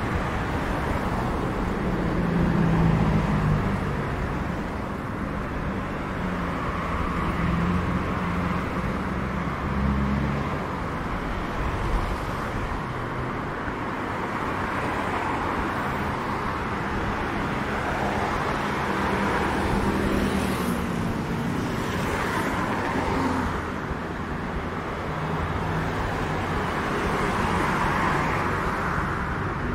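Street traffic: car engines running and passing, a steady road noise with engine hum that swells and fades as vehicles go by.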